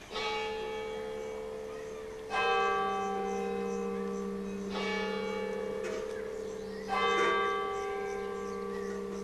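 Church bell tolling with four strokes about two seconds apart. Each stroke rings on in a long, steady hum that overlaps the next.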